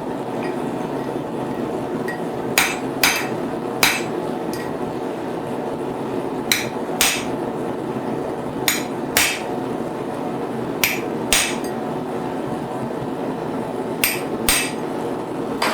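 Hand hammer striking a chisel to cut the split line in a hot steel bar for a fork's tines. The blows mostly come in pairs about every two seconds, over a steady rushing noise.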